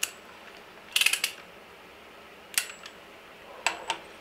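Scattered sharp metal clicks and clinks from a large click-type torque wrench and its socket being handled and fitted onto the harmonic balancer bolt: one click at the start, a quick cluster about a second in, one at about two and a half seconds, and a couple near the end.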